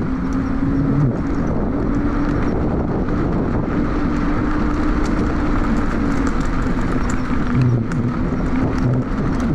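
Honda U-Be electric scooter riding along a dirt path: tyre rumble and wind noise on the rider's chest-mounted microphone, with a steady hum from the electric motor that dips slightly in pitch a few times.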